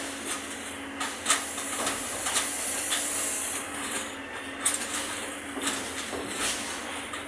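Wheeled excavator's engine running with a steady hum, over irregular sharp clanks and rattles of scrap metal being handled; the loudest clanks come about a second in and just before five seconds in.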